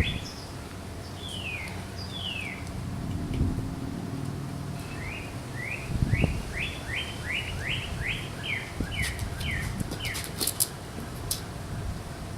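A songbird singing quick down-slurred chirps: a short phrase a second or two in, and a longer run of about a dozen from about five to ten seconds in. Under it there is low rumbling with a knock about six seconds in, and a few sharp clicks near the end.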